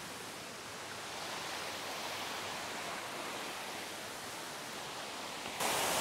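Steady rushing hiss of a waterfall and its cascading creek. About five and a half seconds in, it jumps suddenly louder and stays there.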